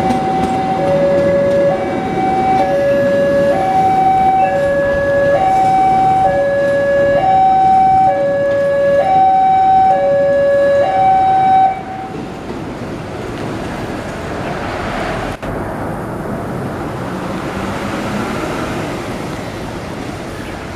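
Railway level-crossing warning alarm sounding a two-tone pattern, a lower and a higher note alternating about once a second, which cuts off suddenly about twelve seconds in. The steady rolling noise of a passenger train moving slowly past runs underneath and carries on after the alarm stops.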